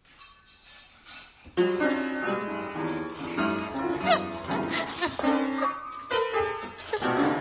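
Background music with piano-like notes, starting about a second and a half in after a near-quiet opening.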